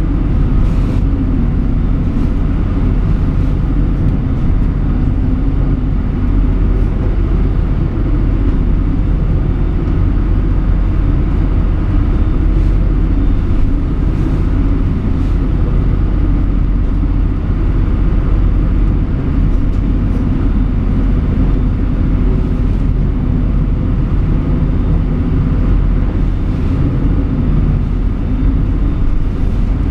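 Motorboat engine running steadily under way, heard inside the wheelhouse, mixed with the rush of storm waves and spray against the hull and windscreen, with a few faint splashes of spray hitting the glass.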